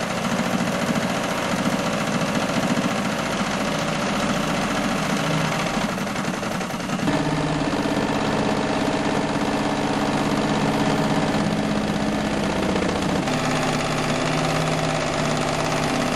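Electric sewing machine running fast and stitching fabric: a dense, rapid needle clatter over a steady motor hum. Its tone changes about seven seconds in and again a few seconds before the end.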